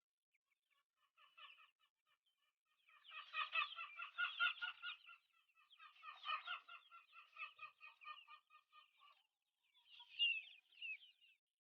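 Philippine native chickens clucking in several bursts of quick repeated notes, loudest about three to five seconds in.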